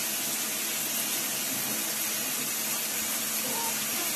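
Steady hiss of water running from a bathtub tap.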